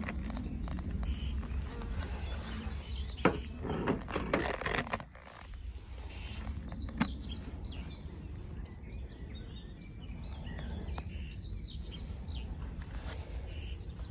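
A beehive being opened by hand: a few sharp knocks and clicks as the metal roof and wooden inner cover are lifted off, over a steady low rumble with birds chirping.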